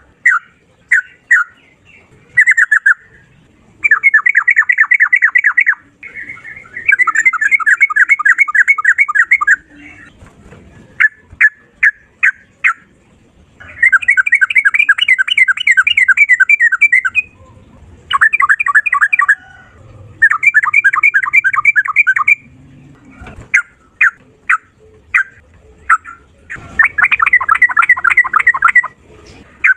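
Yellow-vented bulbul (trucukan) singing loudly: about seven bursts of rapid trilled notes, each one to three seconds long, with short single chirps in between.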